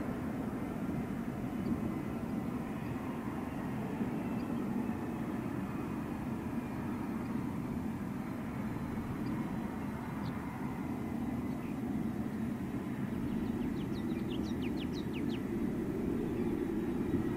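Steady jet rumble of an Airbus KC-30A's two General Electric CF6-80E1 turbofans as the airliner rolls out along the runway after landing, swelling a little near the end. A bird chirps several times in quick succession near the end.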